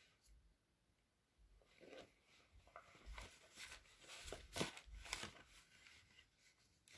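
Near silence, with faint rustling and a few soft knocks from about two seconds in, like a handheld phone and fabric being shifted.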